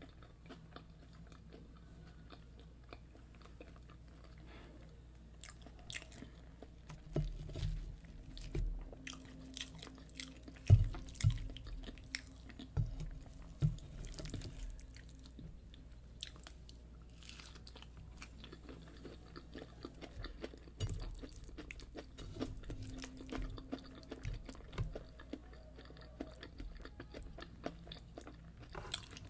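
Close-miked eating: biting and chewing fried yam with egg sauce, with wet mouth sounds and sharp crunchy clicks. It starts quietly and grows busier and louder from about six seconds in.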